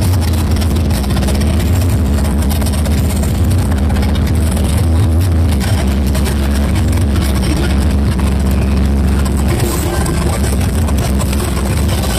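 Huge carnival sound-system speaker stacks blasting together, a loud, dense wash of sound dominated by a steady heavy bass.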